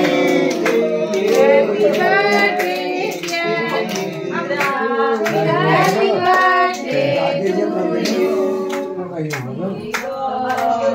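A group of people, children among them, singing together with hand clapping.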